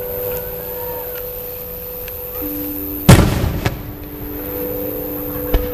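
A single loud firework boom a little over halfway through, dying away over about half a second, followed by a smaller crack and another sharp bang near the end, over background music with long held notes.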